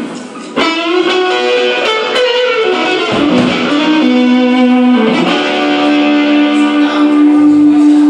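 Amplified electric guitar playing a slow blues line of long sustained notes, the last one held from about halfway through to the end.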